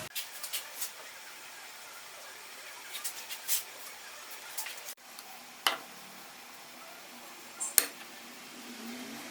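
Scattered light clicks and clinks of workshop parts and tools being handled, a few at a time, over a steady background hiss.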